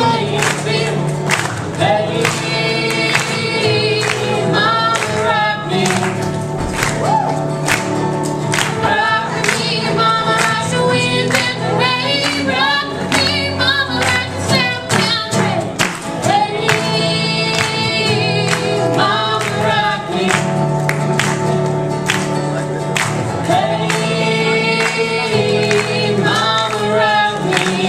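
Acoustic guitar strummed in a steady rhythm while a young man and a young woman sing a duet together.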